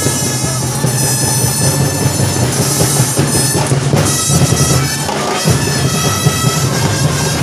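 Live student marching band playing street-dance music: steady drumming underneath a sustained melody line.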